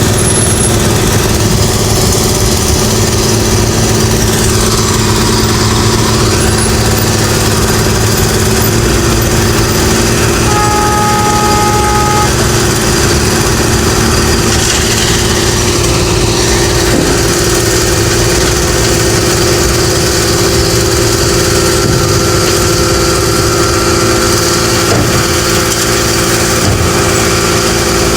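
Engines of road construction machinery running steadily, with a brief higher two-pitch tone about ten seconds in.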